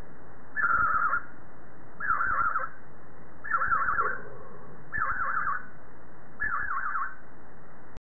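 Budgerigar calling: a short, rapidly wavering trill repeated five times, about a second and a half apart.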